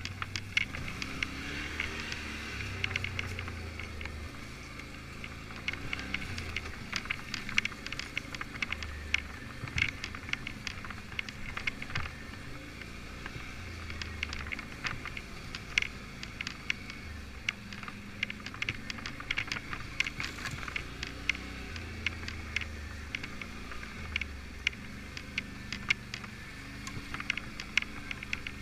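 Quad (ATV) engine running at low speed, its note rising and falling every second or two with the throttle over rough trail, with frequent sharp clicks and rattles throughout.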